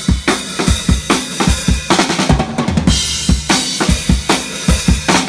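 Drum kit played live in a steady, fast groove: bass drum and snare hits on a regular beat under ringing cymbals, as in a band's sound check.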